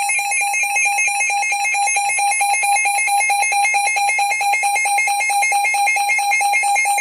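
Alert sirens of a Reecom R-1630 and a Midland WR-120EZ weather alert radio sounding in a siren test: a loud, high electronic tone pulsing rapidly and evenly.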